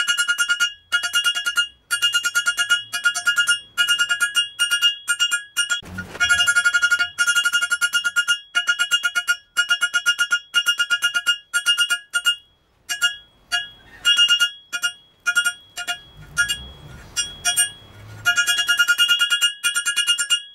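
Hand hammer striking a bar of hot rebar on a steel anvil, drawing out the reins of a pair of tongs: about two blows a second, each ringing at the same bright pitch, with a short break about two-thirds of the way through.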